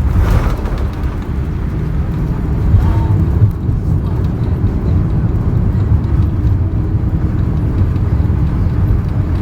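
Loud low rumble inside the cabin of a Boeing 787-8 airliner during its landing, with a short jolt right at the start and the noise building from about two seconds in.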